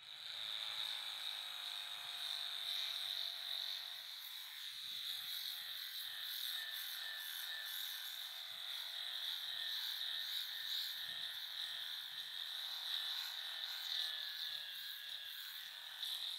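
Angle grinder with a sanding disc running steadily with a high whine, sanding down a wooden handle with a rasping hiss.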